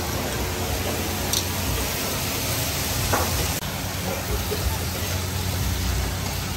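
Food sizzling in hot pans on a gas range over a steady low hum, with a couple of faint clicks.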